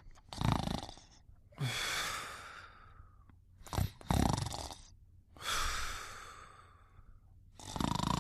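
Snoring while asleep: a run of about five noisy, rasping breaths with short pauses between them, some brief and sharp, others drawn out and trailing off.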